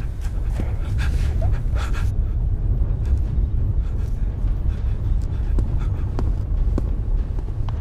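A deep, steady low rumbling drone, with faint panting breaths over it in the first couple of seconds.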